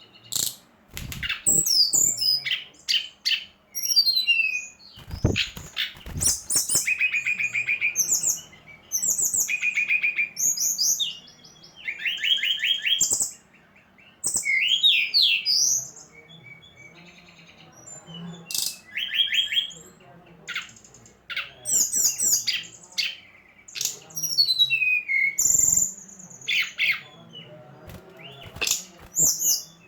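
Brown-chested jungle flycatcher song played as a lure: bursts of rapid chirps and short high trills, one after another, with a few dull thumps in the first six seconds.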